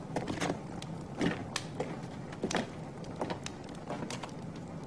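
Scattered soft knocks and clicks at irregular intervals over a low steady hum.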